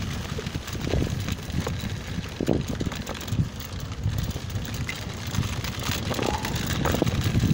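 Mountainboard wheels rolling over bumpy dry grass and dirt: a steady low rumble broken by irregular thumps and knocks as the board runs over the uneven ground.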